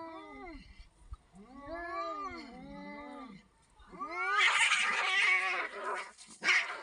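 Two cats caterwauling at each other in long calls that rise and fall in pitch, their calls overlapping. About four seconds in comes a loud, harsh burst of screeching noise lasting about two seconds, followed by a shorter burst near the end.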